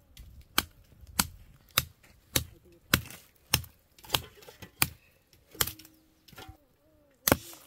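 A run of sharp knocks or strikes, about one every 0.6 seconds, then a few more spaced further apart, with the last one near the end the loudest.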